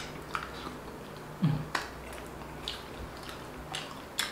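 A person chewing food with scattered small mouth clicks and smacks, and a short low 'mm' falling in pitch about a second and a half in.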